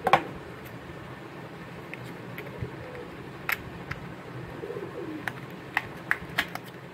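Sharp clicks and taps of a small paperboard box being handled and opened, loudest right at the start, with scattered clicks later. A bird coos faintly behind it, a couple of times.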